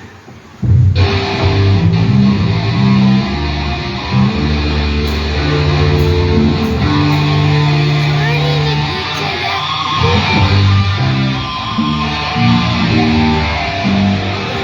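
Loud amplified music led by electric guitar with a moving bass line. It starts about half a second in, after a brief lull.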